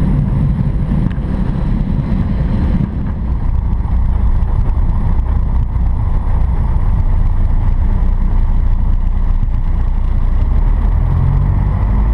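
Light single-engine aircraft's piston engine and propeller running steadily at low power, heard from inside the cockpit.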